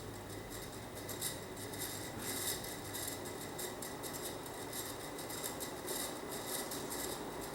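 36-inch Emerson Heat Fan ceiling fan running steadily on its high speed: a constant motor hum with a faint thin whine over a wavering hiss of moving air.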